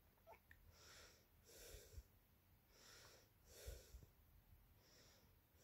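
Near silence with a person's soft breathing, in and out about every two seconds.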